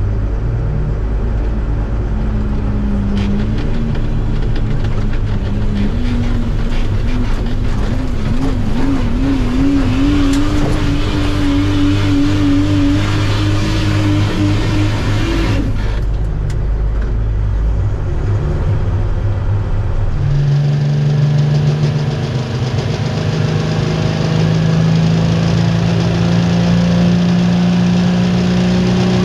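Super stock diesel four-wheel-drive pulling truck's engine running hard under load, its pitch climbing and wavering for about fifteen seconds before the high end drops away. About twenty seconds in the sound changes abruptly to a lower steady engine note that slowly rises.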